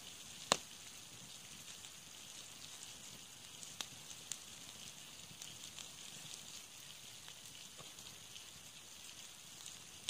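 Small wood campfire crackling and hissing, with sharp pops: the loudest about half a second in, two more around four seconds in.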